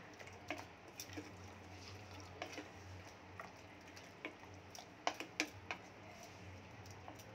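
Wooden spatula stirring mutton pieces in a thin gravy inside a pressure cooker: scattered light knocks and taps against the pot, a few close together about five seconds in, over a faint low hum.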